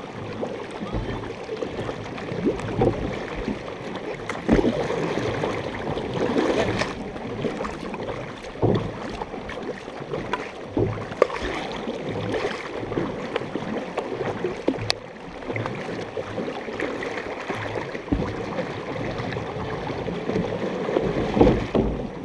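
Water rushing and splashing along the hull of a large canoe under way, with irregular splashes from paddle strokes in the water.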